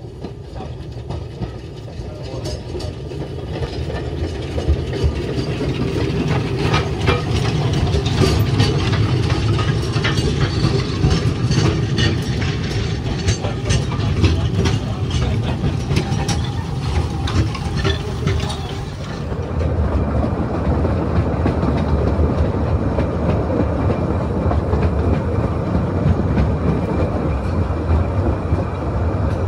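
Narrow-gauge steam locomotive and its carriage approaching and passing close by, growing louder, with many sharp clicks and rattles from the wheels and running gear. About two-thirds of the way in the sound changes abruptly to a steady rumble and clatter heard from a moving carriage.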